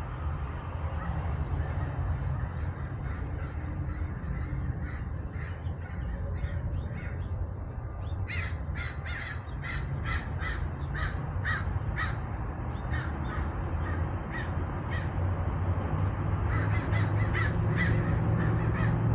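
Crows cawing: a run of quick, evenly spaced harsh caws, about two a second, starting a little before halfway, and another run near the end, over a steady low rumble.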